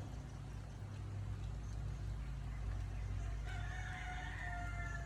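A rooster crows once, starting about three and a half seconds in and lasting about two seconds, over a steady low hum.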